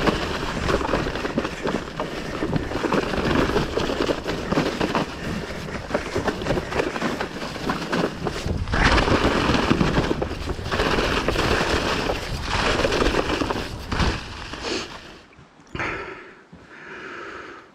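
Mountain bike riding fast over a rough, muddy forest trail, heard from a camera on the bike or rider: a continuous clatter and rushing noise with many knocks from the bike, easing off over the last couple of seconds.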